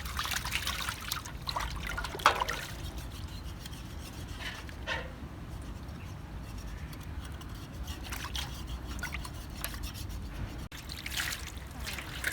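Water trickling and dribbling, with irregular small splashes and scrapes, and one sharp knock about two seconds in.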